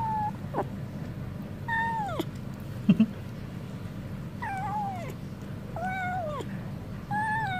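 A tabby cat meowing about five times, each call around half a second long, high and dropping in pitch at the end. A short sharp knock about three seconds in is the loudest sound.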